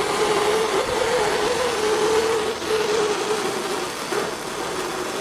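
Hand-held propane torch burning steadily, with a hiss and a wavering hum, as it heats the spine of a hardened knife blade to draw a blue temper.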